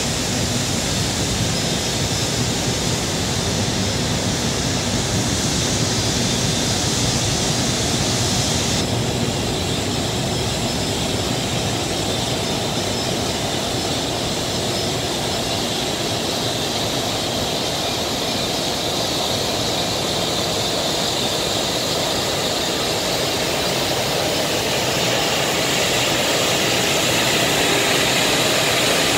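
JR Freight EF510 electric locomotive moving slowly past at close range: a steady rumble with the whir of its cooling blowers. The high hiss drops a step about nine seconds in.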